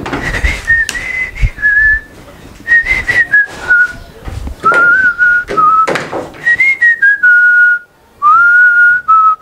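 A man whistling a tune in short phrases, the notes stepping up and down, with a few short knocks and clatters of tools being handled.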